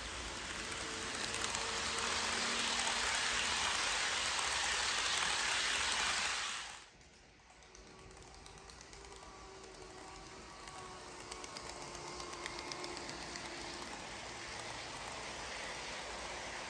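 HO scale model trains running on sectional track: a steady hiss of small wheels rolling on the rails, which drops off suddenly about seven seconds in. After that, a quieter passing train with a faint motor whine and light clicking of wheels over the rail joints.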